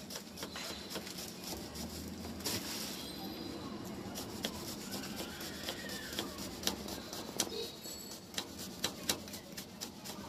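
Kitchen knife slicing an onion on a wooden chopping board: irregular sharp taps of the blade striking the board, over a steady background noise.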